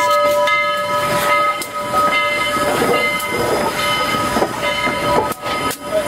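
Steam locomotive standing with steam hissing, under a sustained chord of steady high tones that fades after about four seconds.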